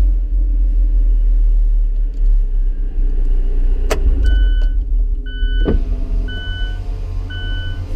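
Alfa Romeo 4C's turbocharged four-cylinder engine running steadily with a loud low rumble. About halfway through there are two sharp clicks, then four evenly spaced electronic warning beeps, about one a second.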